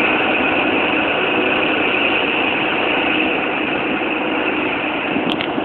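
A High Speed Train (InterCity 125) pulling away from a platform, its diesel power car running steadily under power with a high steady tone on top as the coaches roll past. A couple of short clicks come near the end.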